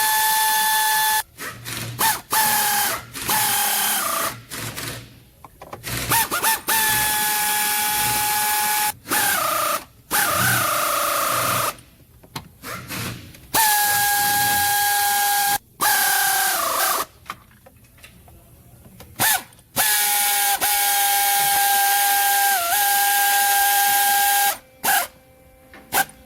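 Power tool running in repeated bursts of one to five seconds: a steady whine over a loud hiss, its pitch dropping as each burst ends.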